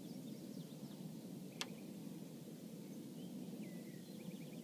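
Quiet outdoor ambience: a steady low background rumble with small birds chirping faintly now and then, and one sharp click about a second and a half in.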